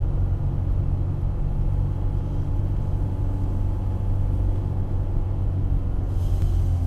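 Steady low rumble of a Mercedes-Benz car's engine and tyres while driving, heard from inside the cabin; a faint hiss joins in near the end.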